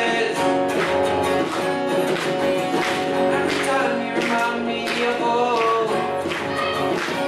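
Two acoustic guitars strummed in a steady rhythm, about two strokes a second, with a young male voice singing over them in a live pop-rock song.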